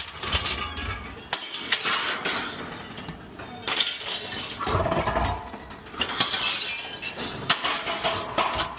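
Scrap metal clattering and banging, with many sharp impacts and rattles of metal pieces striking one another.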